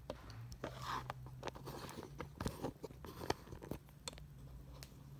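Irregular rustling and crackling with sharp clicks close to the microphone, the sound of something being handled, over a low steady hum.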